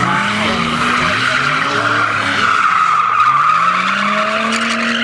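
Nissan Skyline drifting: tyres screeching steadily on the asphalt under the engine, whose note dips and then climbs again over the last couple of seconds.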